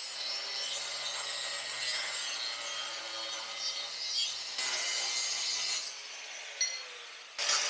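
Angle grinder with a cutoff wheel cutting through the steel bar of a clamp, a steady grinding hiss. It stops about six seconds in, and a louder cut starts suddenly near the end.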